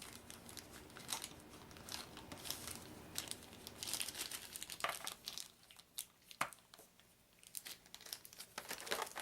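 Plastic packaging crinkling and rustling as it is handled and opened, with a few sharp clicks about five and six and a half seconds in.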